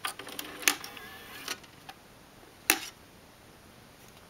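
Clicks and a brief mechanical whir from a Nakamichi SoundSpace 5 three-disc CD changer as its buttons are pressed and its disc mechanism works, then one loud sharp click a little under three seconds in.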